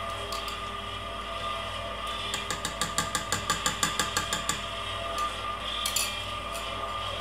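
Electric stand mixer running steadily, its whisk beating cake batter in a steel bowl. About two seconds in, a quick run of a dozen or so metallic taps, about six a second, from a spoon knocked against the bowl to shake off cranberry coulis, with one more tap near the end.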